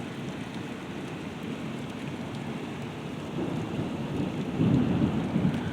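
Heavy rain falling steadily in a thunderstorm, with a low rumble of thunder that begins about halfway through and grows louder near the end.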